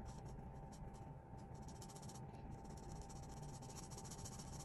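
Felt-tip marker rubbing on sketchbook paper as a dark area is coloured in: a faint, rapid scratching that turns into quick, dense back-and-forth strokes about a second and a half in.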